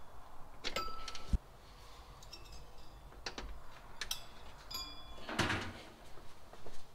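Power-supply cables and connectors being handled and plugged in inside an open steel computer case: scattered light clicks and small metallic clinks, a sharper knock about a second in, and a short rustle of cable near the end.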